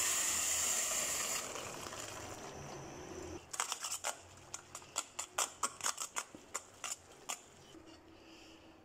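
Hot water pouring from a stainless steel pot into a metal colander, fading out over the first second or so. Then, from about three and a half seconds in, a quick run of sharp clicks, about four a second, as chopsticks tap and scrape the noodles against the metal colander. The clicks stop a little after seven seconds.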